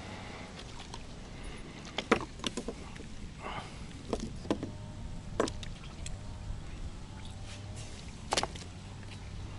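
A freshly landed crucian carp being handled and unhooked on wooden pier boards: a scatter of short sharp knocks and slaps, the loudest about two seconds in and another near the end, over a steady low rumble.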